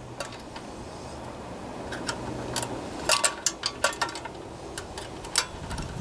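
Irregular metallic clicks and clinks of a combination wrench working the carburetor mounting bolts on a Tecumseh small engine as they are tightened.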